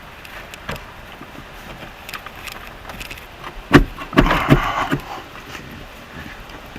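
Hand work on the truck: a sharp knock a little over halfway through, followed by about a second of clattering and scraping, over faint wind noise.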